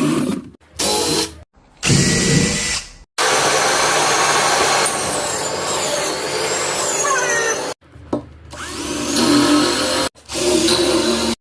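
Power-tool work, mostly a drill running, heard as a run of short loud bursts that start and stop abruptly, with one longer steady stretch in the middle.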